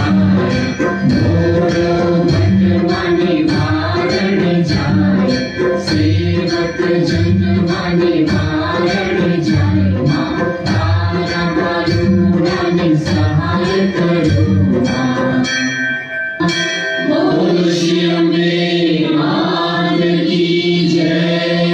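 Hindu aarti song: voices singing together over a steady drumbeat with sharp strikes on the beat. About 16 seconds in the beat stops, and the singing goes on over steady held notes.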